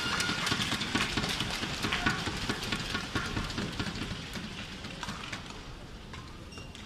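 Arena crowd clapping and cheering in a quick, even rhythm of about five beats a second, dying away after about four seconds. A few sharp racket hits on the shuttlecock follow as the rally gets under way.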